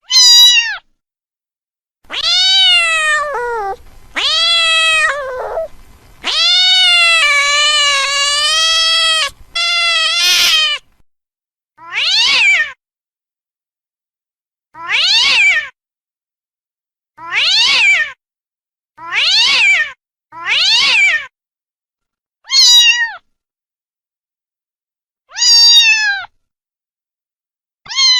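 Domestic cat meowing again and again: a run of long, drawn-out meows in the first ten seconds, then short meows every two seconds or so, with dead silence between them.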